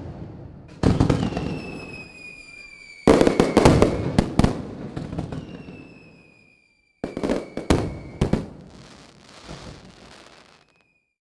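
Fireworks: a string of sudden bangs, each trailing off in crackle, with long whistles that slide slightly downward in pitch. The sound drops to dead silence between volleys, and a cluster of sharp cracks comes about seven seconds in.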